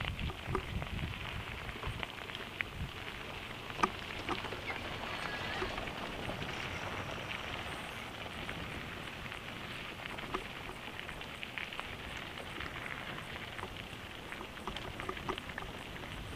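Mountain bike tyres rolling fast over a loose gravel road, a steady crunch with scattered sharp clicks of stones, and one louder knock about four seconds in.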